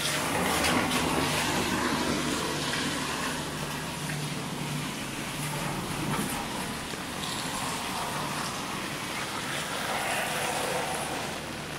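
A vehicle passing on a wet road, its tyres hissing through the water, loudest about a second in, over the steady wash of rain.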